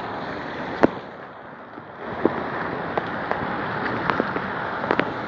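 Steady hiss of heavy rain and water running on the road, with irregular sharp clicks and pops over it, the loudest about a second in and near the end.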